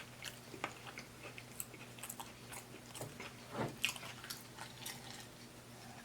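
Close-miked chewing of taco salad: the crisp oven-baked tortilla shell and lettuce crunching in quick, irregular crackles, loudest a little before four seconds in. A faint steady hum runs underneath.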